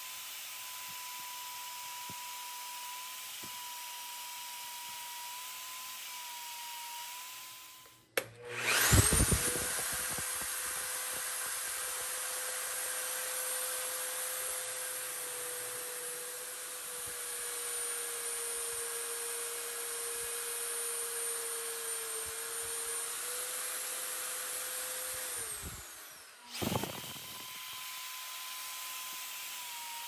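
Milwaukee magnetic-base drill press starting about eight seconds in with a brief surge, then running steadily with a high whine while a center drill cuts into a thick steel plate. It switches off near the end and winds down with falling pitch.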